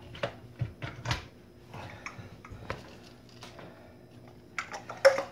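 Light plastic clicks and knocks of a KitchenAid mini food chopper being handled and opened: the lid is unlatched and lifted off the bowl of chopped cashews. The clicks are scattered and faint over a low steady hum.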